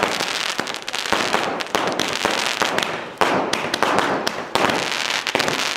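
Fireworks going off: a rapid, irregular run of sharp cracks and bangs from aerial shells bursting.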